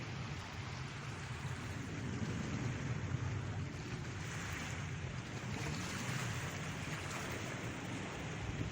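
Sea waves washing onto the shore with soft swells, and wind buffeting the microphone.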